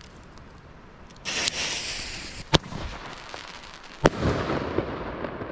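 Funke Vortex Salutbombenrohr, a single-shot salute firework tube: its fuse hisses briefly, then a sharp pop as the tube fires the shell, and about a second and a half later a louder, punchy bang as the shell bursts overhead, trailing off in a rumbling echo.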